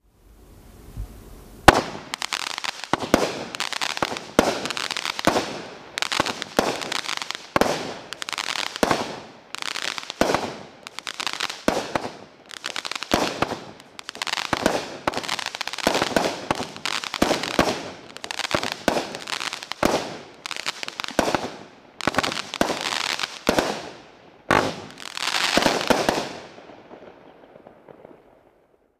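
Cutting Edge Fireworks' Death Rattle firework going off: one sharp bang about two seconds in, then a long run of crackling bursts, roughly one a second, each a dense rattle of crackles. The bursts die away near the end.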